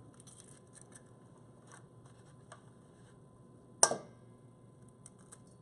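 An egg knocked once against the rim of a stainless steel mixing bowl, a sharp crack with a brief metallic ring about two-thirds of the way through. Before it, faint small crackles of eggshell being pulled apart.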